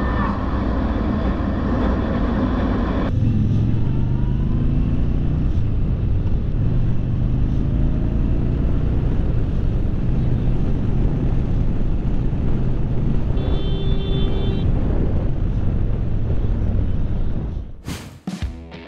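Motorcycle riding heard from on-bike cameras, with wind and road noise. First comes a Yamaha MT-03 660cc single-cylinder. After a cut about three seconds in, a Yamaha Bolt R-Spec's air-cooled V-twin accelerates with rising engine pitch. A steady single-pitch beep lasting about a second sounds in the latter part.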